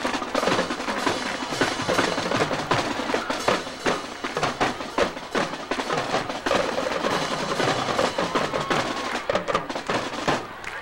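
High school marching band playing on the field, with the drumline's fast snare and tenor drum strokes loudest and held horn notes beneath them.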